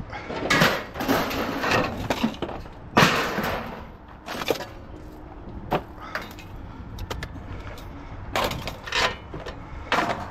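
Scrap items being handled and dropped: a series of crashes and clatters at irregular intervals, the loudest about three seconds in.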